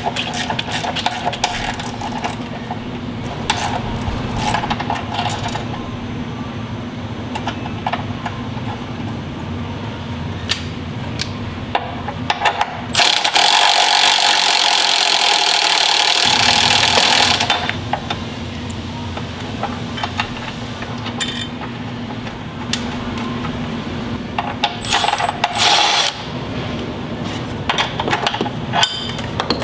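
Hand tools working on metal: scattered clinks, knocks and clicks as a bracket is bolted onto a car's rear cross member, over a steady hum. About 13 seconds in, a loud hissing rush lasts about four seconds, then the clinking goes on.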